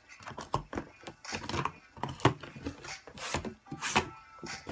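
Cardboard shipping box being pulled open by hand, with the lid sliding off the base. Irregular scraping and crackling of cardboard, with sharper knocks about halfway through and near the end.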